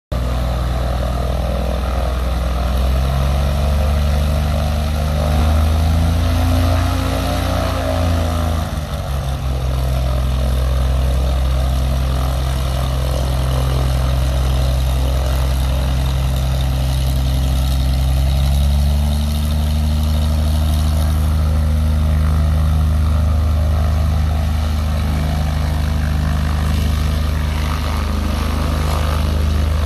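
Cessna crop-duster's piston engine and propeller running as the plane taxis. The engine note climbs over the first several seconds, drops back sharply at about eight and a half seconds, then rises again a little past halfway and holds steady.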